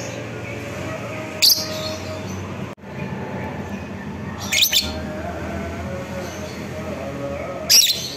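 Fischer's lovebird giving short, shrill, chattering calls three times: once, then a quick double call, then once more near the end. A steady background hum runs underneath.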